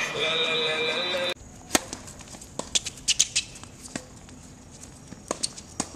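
Tennis balls being struck with rackets and bouncing on a hard court: a scatter of sharp pops at irregular intervals. Before them, the first second or so is a steady car interior sound that cuts off abruptly.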